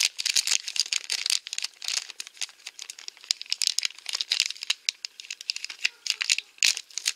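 Small yellow HDPE plastic blind bag crinkling as fingers work it open: rapid, irregular crackling and rustling, with one sharper crack near the end.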